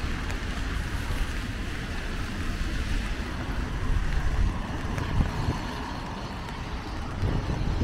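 Steady rainy-day outdoor ambience: an even hiss with a low rumble underneath.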